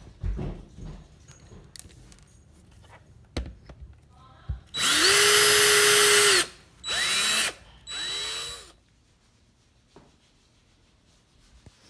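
Power drill boring into a wooden log slice with a twist bit: one steady run of about a second and a half, then two short bursts as the motor spins up and winds down. A few light knocks come before.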